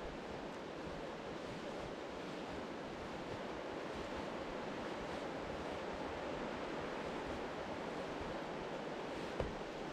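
Steady wind rushing over the microphone outdoors, an even unbroken noise, with one short click near the end.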